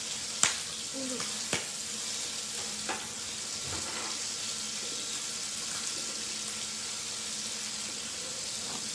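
Chicken-skin satay sizzling in oil on a grill pan, a steady hiss, with a few sharp clicks in the first three seconds.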